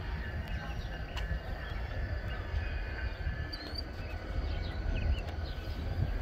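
Wind rumbling on the microphone over the distant sound of a large rail yard, with faint steady high squeals and a few short high bird chirps.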